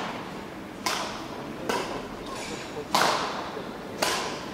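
Badminton racket hits on a shuttlecock, four sharp cracks about a second apart with a rally's uneven rhythm, each ringing on in a large hall's echo.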